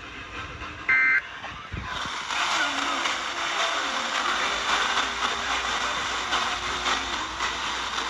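A single short burst of Emergency Alert System digital data tones, the end-of-message burst that closes a broadcast alert, sounds about a second in. From about two seconds on a steady, noisy static hiss follows.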